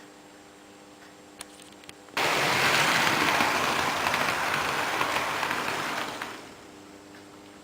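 Märklin H0 model train running on metal track close by: a loud, even rattling rush that starts abruptly about two seconds in and dies away about six seconds in. Under it a steady electric hum with a couple of faint clicks.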